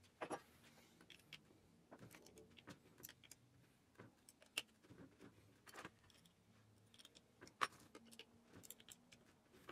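Faint, scattered clicks and light metallic taps of a hex key and small steel parts being handled, with one sharper click about three quarters of the way through.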